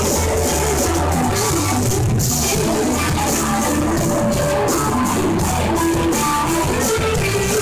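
Live jam band playing a rock tune: electric guitar lines over a drum kit with regular cymbal strokes, steady and loud.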